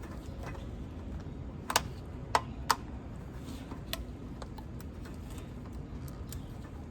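Plastic clicking and tapping as a twisted strip of water-bottle plastic is worked into the port hole of a plastic bird tube feeder: a scatter of short sharp clicks, the three loudest close together a little under two seconds in.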